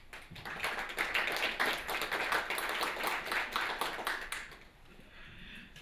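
Audience applauding. The clapping fades out about four and a half seconds in.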